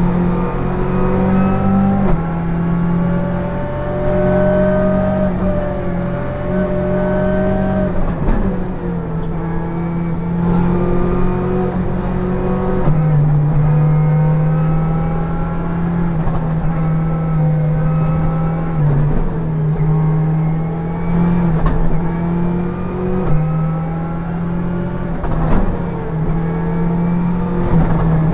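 Škoda Octavia WRC rally car's turbocharged four-cylinder engine heard from inside the cockpit, pulling hard at high revs. The pitch climbs through each gear and drops at each of several quick gear changes.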